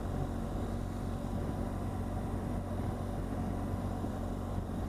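BMW R1200GS boxer-twin engine running steadily at a light cruise of about 30 mph, a low even hum mixed with wind and road noise.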